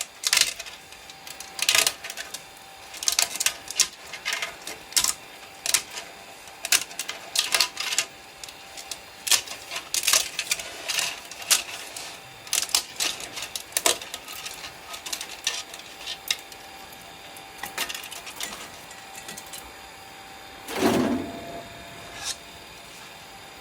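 3D printer at work: irregular clicks and taps from its moving parts over a faint steady whine, thinning out later, with one louder, lower knock or rustle near the end.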